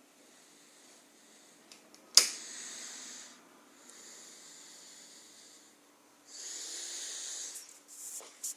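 Breathing close to a phone's microphone: three hissing breaths of a second or two each, with a sharp click about two seconds in.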